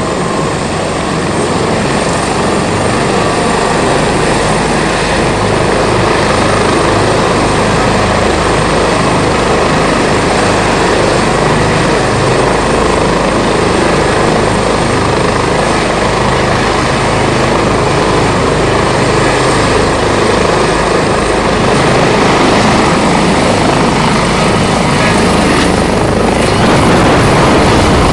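Airbus H145 rescue helicopter running on its pad: loud, steady twin-turbine and rotor noise with a thin high turbine whine. In the last several seconds the whine climbs and the sound grows louder as power comes up for lift-off.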